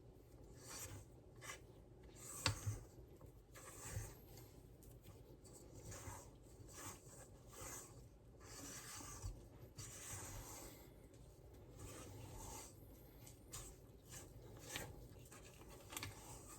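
Spatula scraping and folding thick brownie batter in a mixing bowl: faint, repeated uneven scraping strokes with a few sharper taps against the bowl.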